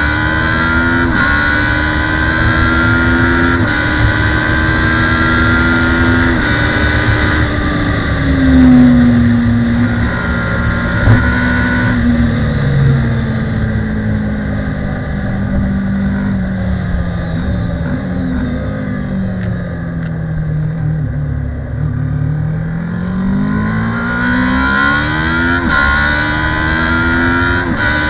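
Kawasaki ER-6 (ER650) parallel-twin race bike's engine heard onboard under racing load. It revs up and drops back at each upshift, then falls slowly in pitch and quietens off the throttle, then climbs through the gears again near the end. A single sharp knock comes about eleven seconds in.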